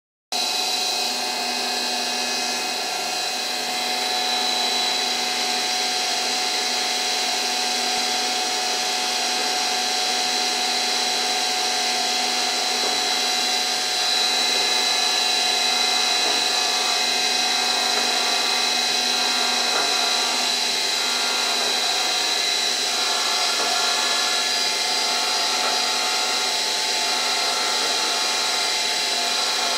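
CNC milling machine running a cutting program on a sandal die, its spindle giving a steady high whine with a constant mechanical hum under it.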